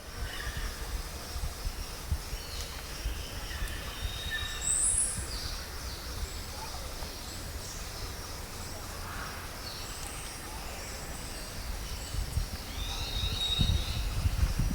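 Scattered short bird chirps and whistles over a steady low rumble. The rumble grows louder and more uneven near the end.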